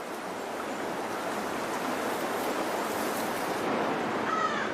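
Stream water rushing steadily. Near the end a crow caws once.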